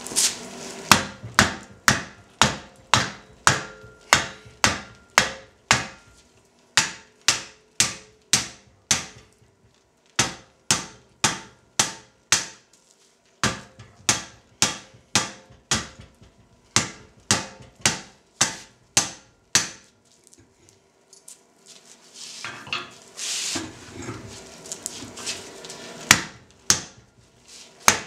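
Hand hammer striking red-hot steel on a cone mandrel in the anvil's hardy hole, opening up a forged eye: sharp metallic blows about two to three a second, in runs with short pauses, each with a brief ring.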